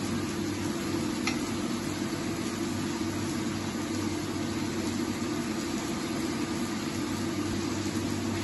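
Steady machine hum: a constant low drone with a hiss over it, unchanging throughout.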